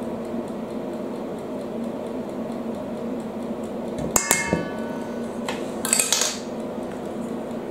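Metal measuring spoon clinking against a stainless-steel mixing bowl: one sharp clink with a short ring about four seconds in, then a brief rattle near six seconds, over a steady low hum.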